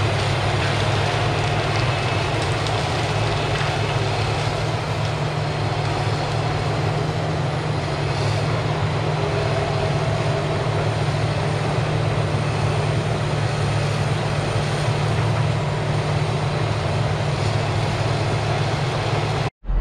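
Caterpillar 973C track loader's diesel engine running steadily as the loader pushes down small burnt trees. The sound cuts off abruptly near the end.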